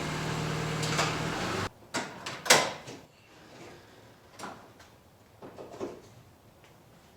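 A car engine running steadily cuts off abruptly. A few separate clunks and knocks follow, the loudest shortly after, typical of a car door and latches.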